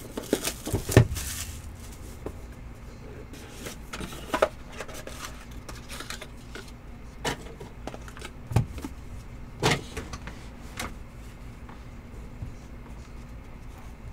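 Scattered clicks and knocks of hands handling a cardboard box and trading cards in clear plastic holders, over a low steady hum.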